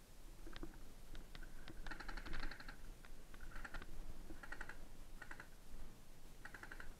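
Airsoft guns firing short bursts of automatic fire, each a rapid string of clicks; there are about five bursts, and the first, about two seconds in, is the longest and loudest.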